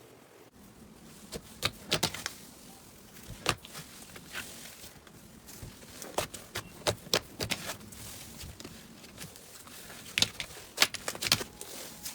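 Slime being squeezed and pressed by hand, giving irregular sharp pops and clicks, in clusters, with short quieter gaps between them.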